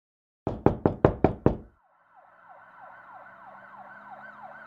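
Six loud, sharp knocks in quick succession, about five a second. A siren then fades in, its pitch sweeping up and down rapidly, and grows louder.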